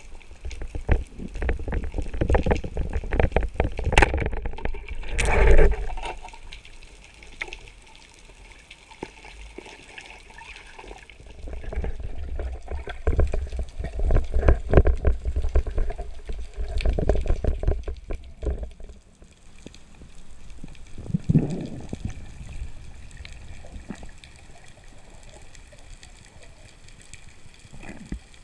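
Underwater water noise around a camera fixed to a speargun: surges of rushing, bubbling water full of small clicks and knocks, louder about a second, five seconds, twelve to eighteen seconds in, with a sharp click about four seconds in.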